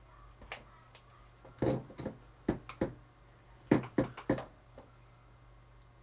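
A series of about a dozen irregular sharp clicks and knocks, some in quick clusters, over a steady low electrical hum.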